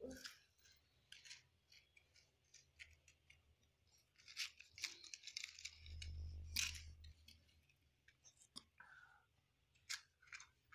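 Faint, scattered clicks and light rustles of small items being handled, busiest in the middle, with a brief low hum around the middle.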